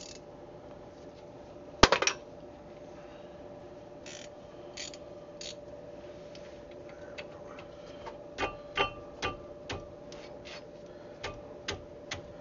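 Metal hand tools, sockets and a ratchet, clinking as they are handled. There is one loud clatter about two seconds in, then scattered light metallic clicks and taps, several close together from about eight seconds in, over a faint steady hum.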